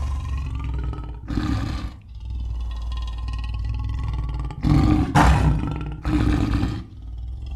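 A large animal growling with a deep, continuous rumble, rising into louder roars four times.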